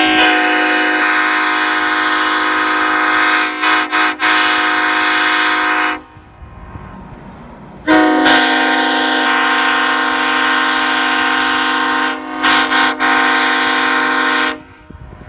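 Nathan Airchime K5-series five-chime locomotive air horn blown in two long, loud blasts of about six seconds each, each sounding a deep chord. Both blasts are broken by a few quick stutters partway through, and there is a short pause between them.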